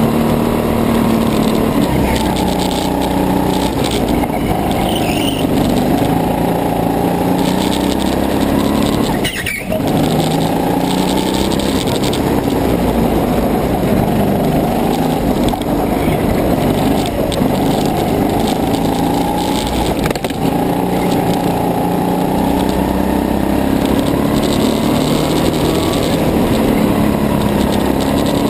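Go-kart engine running at racing pace, its pitch rising and falling over and over as the kart speeds up and slows for corners. The note dips sharply for a moment about nine seconds in. With the camera stuck to the kart's fairing, the engine and chassis vibration come through loud.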